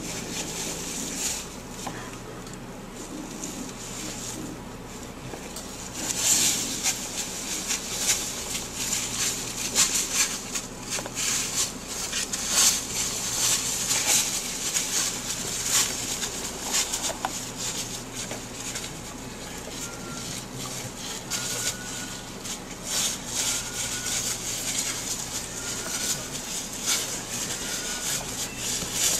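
Dry fallen leaves rustling and crackling under brown bears' paws as they scuffle and root through the leaf litter, in irregular bursts.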